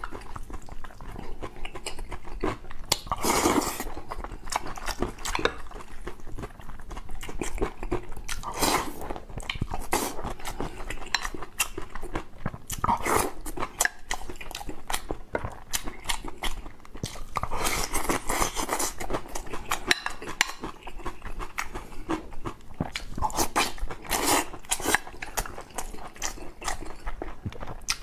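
Close-miked eating of boiled pork and soup: wet chewing and loud slurped mouthfuls every few seconds, with a metal spoon clicking against a glass bowl.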